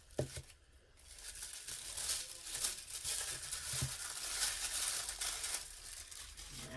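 Tissue paper rustling and crinkling as it is unfolded and pulled off a wrapped item, with a sharp tap near the start.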